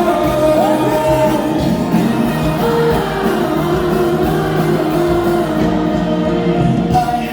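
Pop song with sung vocal notes held over the instrumental backing, at a steady loud level that drops right at the end.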